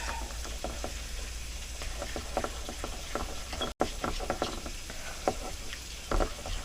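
Utensil stirring thick powdered-sugar glaze in a bowl, quick irregular scrapes and clicks against the bowl as the lumps are worked out. A split-second dropout a little past halfway.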